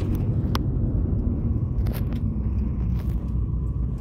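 Steady low engine and road rumble heard from inside a moving minibus, with a brief click about half a second in.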